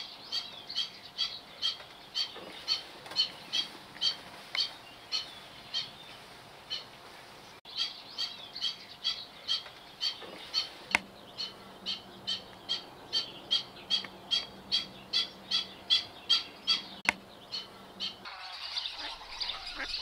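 Black-winged stilt calling: a short, sharp call repeated about three times a second, pausing briefly about seven seconds in and stopping shortly before the end.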